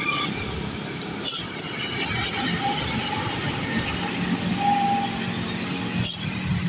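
A heavy tanker truck driving past on a road: steady engine drone and tyre noise, with motorcycles in the traffic around it.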